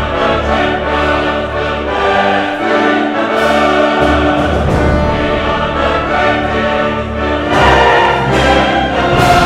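Orchestral music with a choir singing held notes. It swells louder about seven and a half seconds in.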